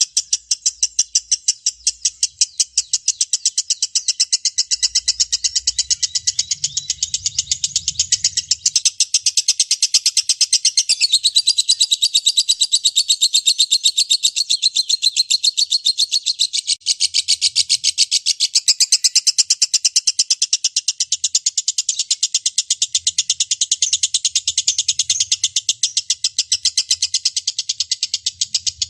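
Lovebird ngekek panjang: one long unbroken chattering trill of rapid, sharp, high-pitched notes, the extended song that lovebird keepers prize in contest birds.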